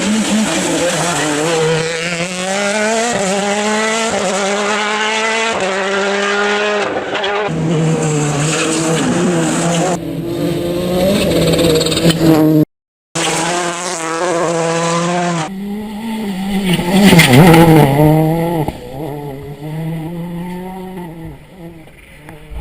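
Rally car engines at full throttle, the engine note climbing and dropping back in steps as the cars shift up through the gears. A brief silence comes about halfway, and the loudest moment, as a car passes close, comes about three-quarters through before the sound fades away.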